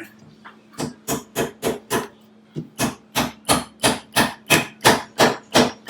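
Hammer tapping a plastic furniture button into the foot of a wooden table leg, about three even blows a second. A run of five, a short pause, then a longer steady run whose blows grow louder.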